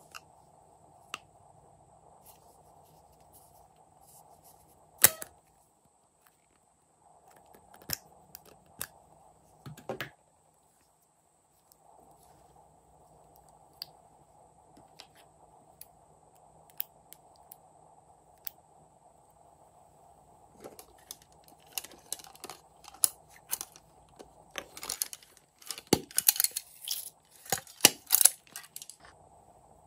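Sharp clicks and snaps of plastic and metal makeup compacts and cases being handled and opened: a few single clicks at first, one of them loud about five seconds in, then a dense run of clicking and rattling over the last several seconds.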